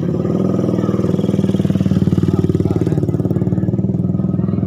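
Motorcycle engine running close by as the bike rides past, a steady, fast-pulsing note that swells slightly about halfway through.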